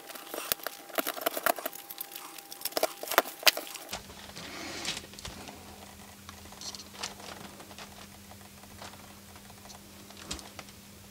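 Rapid small plastic clicks and snaps as a thermostat's circuit board is worked free of the tabs of its plastic housing, for about the first four seconds. After that, only occasional faint handling ticks over a low steady hum.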